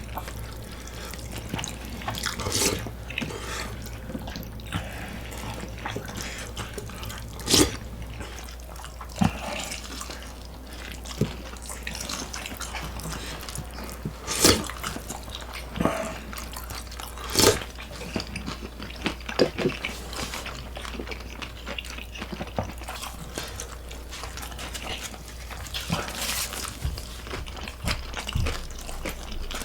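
Close-miked eating: wet chewing and smacking of saucy food, broken every few seconds by short sharp clicks.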